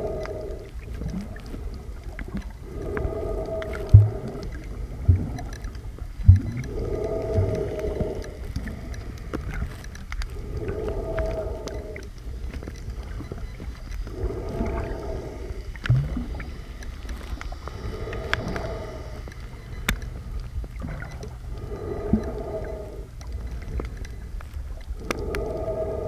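Steady low rumble of a glass-bottom tour boat's hull, with a hollow, pitched surge of water against the hull about every three to four seconds. A few sharp knocks come about 4, 5 and 6 seconds in.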